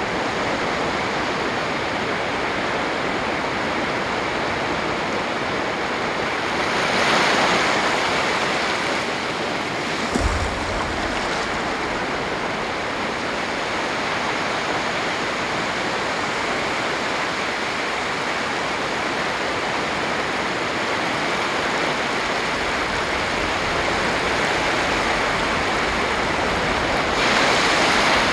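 Sea surf washing onto a sandy beach: a steady rush of breaking waves, swelling louder as a wave breaks about a quarter of the way in and again near the end. A brief low thump about a third of the way in.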